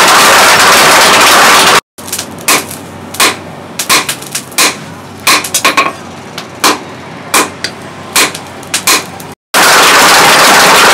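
Mechanical power hammer pounding hot steel in rapid, dense blows. After a cut, about fifteen separate hammer strikes ring on hot steel on an anvil, irregularly spaced. The power hammer's rapid pounding returns near the end.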